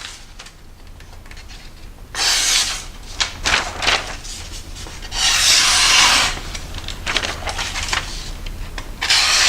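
Freshly sharpened CTS-204P steel knife edge slicing through a sheet of paper in a paper sharpness test. There are several hissing cuts: one about two seconds in, a run of short rasps soon after, a longer cut in the middle, and another near the end. The clean slicing is the sign of a keen edge.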